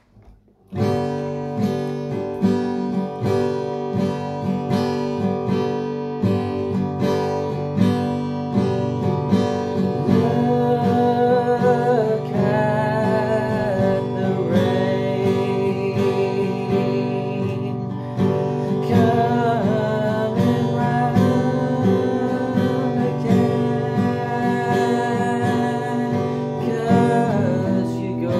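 Acoustic guitar strummed in a steady rhythm, starting about a second in. From about ten seconds in, a man's voice sings over it in long, wavering held notes.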